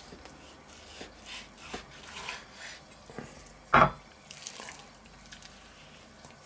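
Kitchen knife slicing through a raw pork roast on a wooden cutting board, with soft scrapes and small clicks of the blade, then one loud knock on the board about four seconds in, followed by quieter handling of the raw meat.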